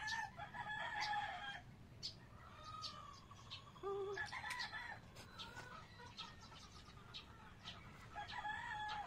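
Faint bird calls: three long, pitch-bending calls, one near the start, one about four seconds in and one near the end, with light ticks between them.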